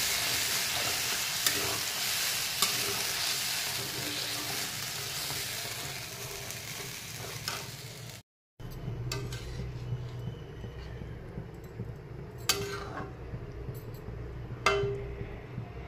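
A spice paste (masala) sizzles steadily as it fries in an aluminium kadai, with a spatula stirring and scraping through it. About halfway through the sound cuts off abruptly. After that the sizzle is gone, leaving a low hum and a few sharp, ringing knocks of the spatula against the pan.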